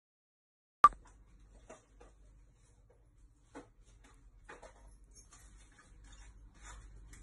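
Dead silence, then a single sharp click about a second in as the sound cuts in. Scattered faint clicks and ticks follow over a low steady hum.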